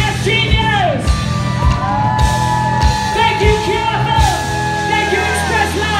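Live rock band playing: a male singer sings and yells long held notes over electric guitar, bass and a drum kit keeping a steady beat.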